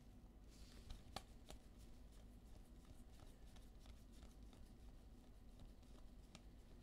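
Faint, soft clicks and slides of basketball trading cards being flipped through by hand, one after another, with two sharper clicks about a second and a second and a half in.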